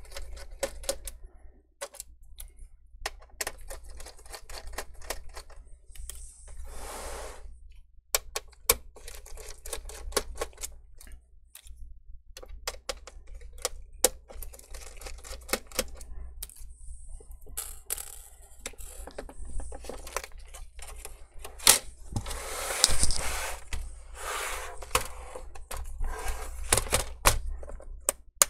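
Small screws being taken out of the sheet-metal back and bracket of a laptop-style LCD panel with a screwdriver: a long string of irregular clicks, taps and scrapes as the screwdriver, screws and metal are handled. The clicking gets busier and louder about two-thirds of the way through.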